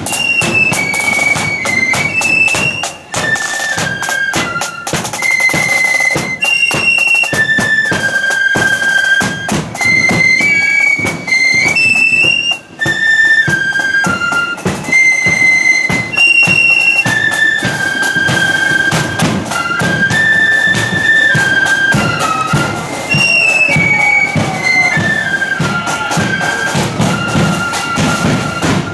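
Marching flute band playing a tune: a single shrill flute melody in unison over steady drumming.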